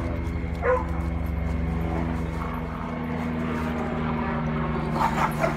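Steady low engine drone made of several even tones held throughout. A short sliding cry about half a second in, and a few short sharp sounds near the end, stand out above it.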